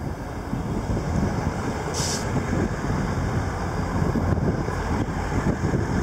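Diesel multiple unit passing close by, a steady low rumble of its engines and wheels on the rails, with a short hiss about two seconds in.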